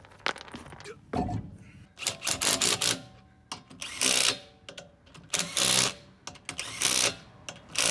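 Socket tool working a truck wheel's lug nuts: rapid rattling clicks in short bursts, repeated about every second and a half.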